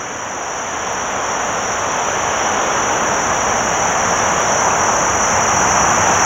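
A broad rushing noise of an aircraft overhead, growing gradually louder, over a steady high-pitched drone of insects.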